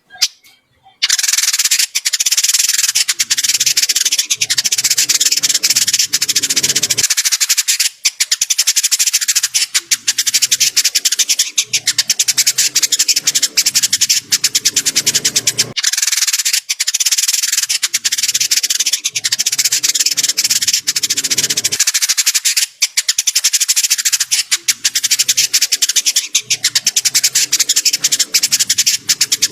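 Indigo bunting song, a dense, harsh, very rapid twittering chatter in long phrases of about six to eight seconds with short breaks between them.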